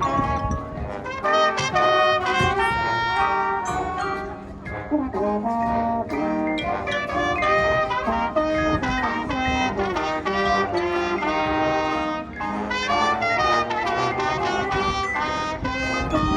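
Marching show band playing a quick tune in short notes, led by trumpets and trombones, with drums underneath.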